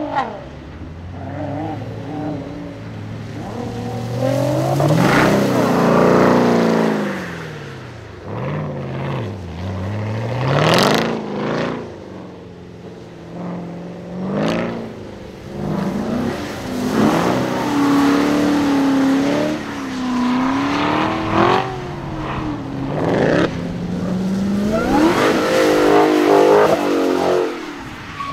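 Sports car engines revving up and falling back in repeated sweeps as the cars drift, a Nissan GT-R's at first and a Dodge Challenger's near the end; the loudest sweeps come about six seconds in and near the end.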